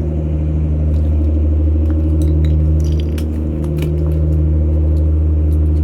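Steady, loud low hum of an idling engine, with scattered light clicks and ticks over it.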